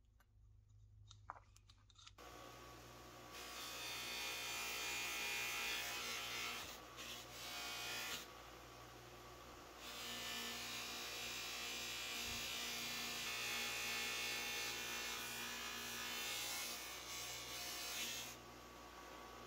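A 6-inch bench buffer's electric motor running with a steady hum, coming in about two seconds in. A small metal part is pressed against the spinning buffing wheel in two long passes, a louder rubbing over the hum that drops back to the plain motor sound for a second or two between them and near the end.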